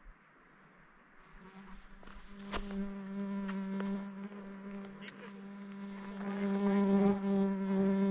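A fly buzzing close to the microphone: a steady, even drone that comes in about a second in and grows louder toward the end. A single sharp click sounds about two and a half seconds in.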